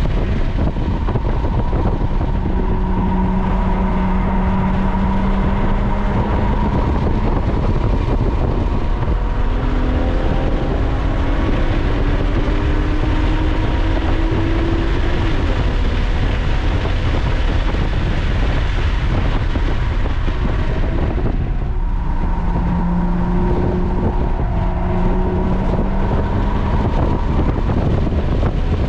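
Lotus sports car heard from inside the cabin on track at speed, its engine pulling hard up through the revs with heavy wind and road noise. The engine pitch climbs, drops back at a gear change, and climbs again. About two-thirds of the way through it eases off briefly while the car slows, then picks up again.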